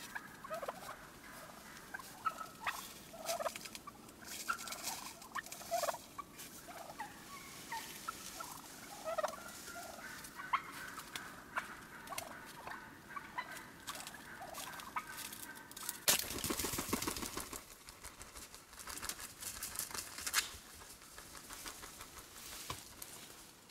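Wild turkeys calling: a long string of short, clipped calls, many dropping in pitch, with a loud, noisy scuffing burst lasting about a second roughly two-thirds of the way through.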